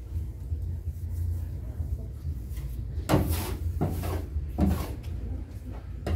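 Metal bench scraper scraping across a stainless-steel worktable to gather dough scraps, in several short strokes from about three seconds in, over a steady low hum.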